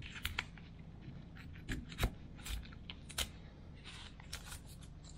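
Painter's masking tape being pressed down and handled on a cast-iron carburetor base: faint scattered rustles, taps and small scrapes.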